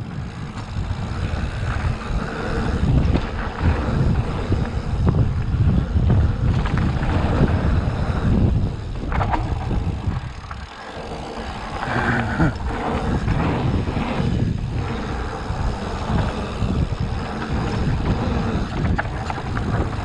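Wind buffeting the microphone of a mountain bike riding fast down a dirt trail, with the rumble of tyres and the rattle and clicks of the bike. The rush rises and falls with speed and dips briefly about ten seconds in.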